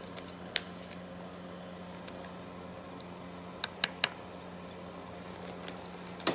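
Sharp clicks of hand cutters snipping solder wire into small pieces: one about half a second in, three in quick succession around four seconds, another near the end, over a steady low hum.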